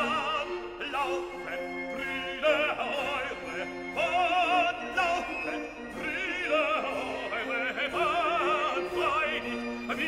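Opera music: a singer holding long notes with wide vibrato over an accompaniment of held lower notes.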